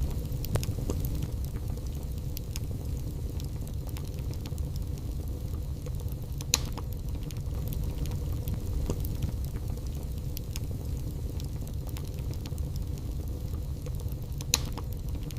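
Wood fire burning in a fireplace: a steady low rumble of the flames with scattered crackles and pops of the burning logs, two sharper pops about six seconds in and near the end.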